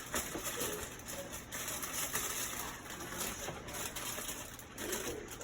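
Utensil stirring a wet mix of water, vegetable oil and egg in a mixing bowl: a continuous run of small scrapes and clicks.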